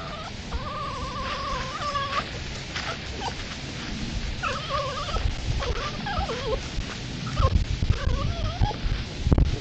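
Red foxes crying: a long wavering whine about half a second in, followed by several shorter wavering, whimpering calls. Low rumbling thumps come in from about halfway and grow stronger near the end.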